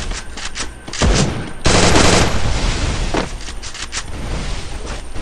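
Video-game gunfire: rapid volleys of automatic-weapon shots, with the densest burst about two seconds in.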